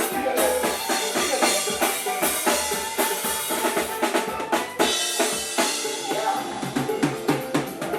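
Live band playing, with a drum kit prominent: rapid snare and bass drum hits over pitched instruments.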